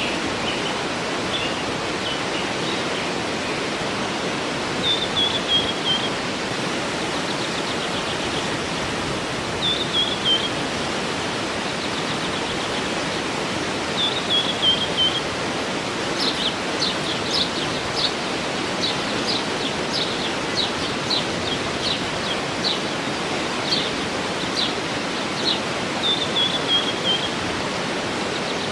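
Waterfall rushing steadily, with birds singing over it: a short falling phrase repeated several times, and from about halfway on a quick run of sharp chirps.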